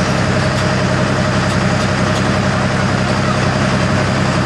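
Pickup pulling truck's engine idling steadily and loudly while it waits at the pulling sled to be hooked up before its run.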